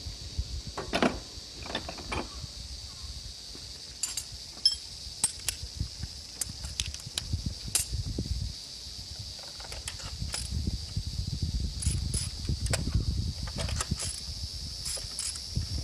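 Scattered sharp metallic clicks and clinks of hand tools and parts being handled while changing spark plugs, over a steady high-pitched drone of insects.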